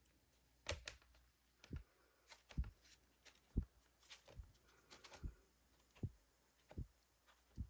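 Vinyl LP record jackets being flipped forward one by one in a plastic crate, each cardboard sleeve landing against the next with a soft tap, about a dozen times.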